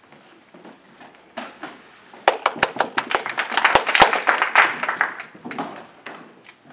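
A burst of rapid sharp claps and knocks that starts suddenly about two seconds in, is densest around the middle with a few heavy knocks, and dies away about two seconds later.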